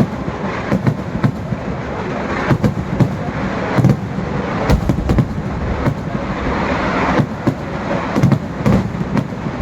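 Massed festival fireworks going off in a continuous barrage: a dense crackling roar broken by sharp, irregular bangs, about two a second.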